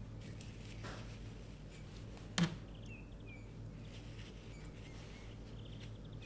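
Soft rustling of tissue paper as it is unwrapped from a plant cutting by hand, with one sharp click about two and a half seconds in and a few faint high chirps just after.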